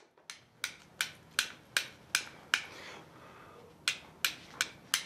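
Blacksmith's hammer striking iron on an anvil in a steady rhythm, about two and a half ringing blows a second: seven blows, a pause of about a second, then four more. This fits hammering a rod hot to light the forge without a match.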